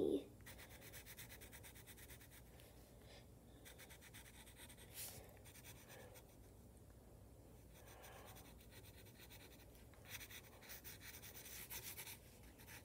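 Pencil scratching on paper in many quick, short, light strokes, sketching fuzz. Faint, with the strokes thinning out in the middle and coming thick and fast again near the end.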